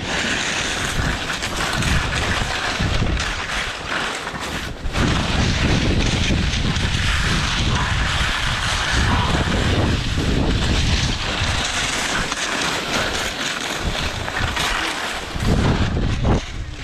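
Wind buffeting the helmet or body camera's microphone with a heavy rumble, over the hiss of edges scraping on hard snow during a steep downhill run. The noise stays irregular, with two brief lulls.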